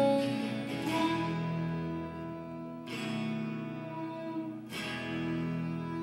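Stratocaster-style electric guitar through a small amp: three chords struck about two seconds apart, each left to ring out and fade.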